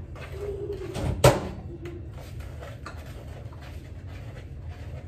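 Kitchen handling at a mixing bowl: one sharp knock about a second in, then faint scattered clicks over a steady low hum. Twice in the first two seconds there is a short low hummed tone.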